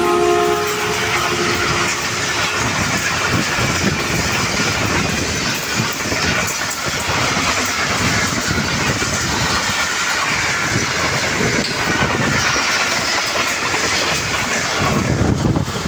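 Express passenger train of diesel-hauled coaches passing at about 109 km/h: the end of the locomotive's horn cuts off about a second in, then the coaches rush past with a fast, steady clatter of wheels over the rail joints.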